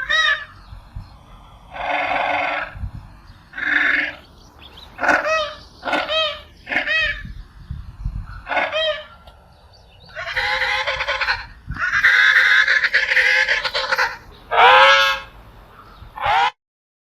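Penguin calls: a series of short honking calls, then two long braying calls about ten and twelve seconds in, and a final call that cuts off suddenly near the end.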